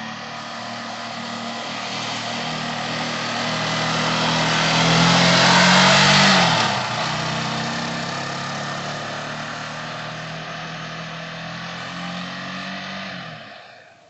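Motorcycle engine of a GM Sportbike R 250 running under way, growing louder to a peak about six seconds in where its pitch drops, then running steadily and fading away near the end.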